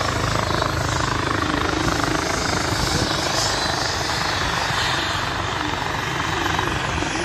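EC135-type helicopters running on the ground with turbines and rotors still turning: a steady, loud helicopter noise that holds level throughout.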